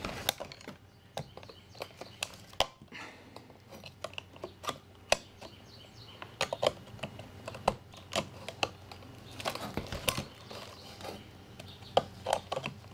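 Needle-nose pliers prying a metal rivet out of a plastic light-fixture housing: irregular small clicks and scrapes of metal against metal and plastic.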